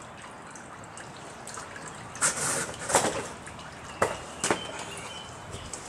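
Used engine oil from a 1987 Porsche 911 trickling steadily into a drain pan during an oil change, with a few louder sudden noises about two, three and four seconds in.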